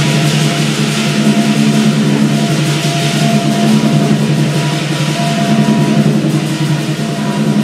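Lion dance percussion: the big drum struck in a rapid, continuous beat, with cymbals clashing and a gong ringing along with it.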